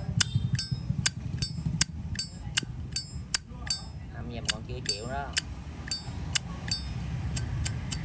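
Zippo lighter lid flicked open and snapped shut over and over: sharp metallic clicks with a bright ring, about two or three a second, played to show off the lighter's sound.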